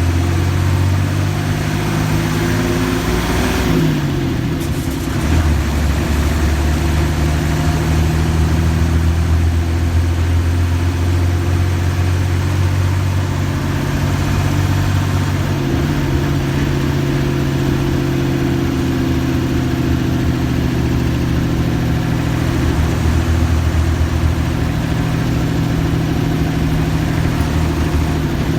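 Diesel engine of a Mercedes-Benz OF-1315 bus running steadily, its note dropping about four seconds in and shifting again around sixteen seconds in.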